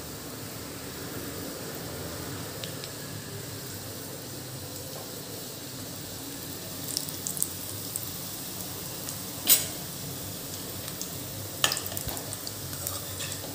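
Stuffed dough balls (masala baati) deep-frying in hot oil in a pot, freshly put in: a steady sizzle of bubbling oil. A few sharp clicks come in the second half, the loudest about two-thirds through, and near the end a spoon turns the balls in the oil.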